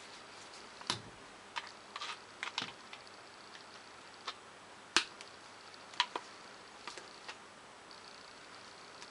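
Scattered light clicks and taps of small metal engine parts being handled: about a dozen irregular knocks, the loudest about five seconds in.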